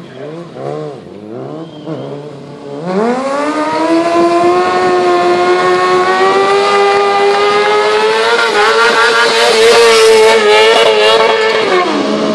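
Motorcycle engine blipped up and down a few times, then revved hard about three seconds in and held at high revs for around nine seconds, getting louder, before the revs drop near the end.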